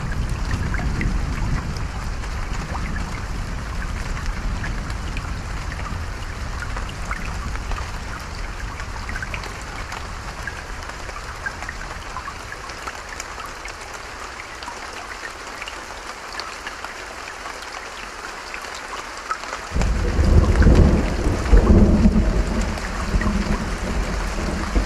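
Creek and rain running steadily, with thunder: a low rumble fades away over the first dozen seconds, then a loud roll of thunder breaks in about twenty seconds in and rumbles on.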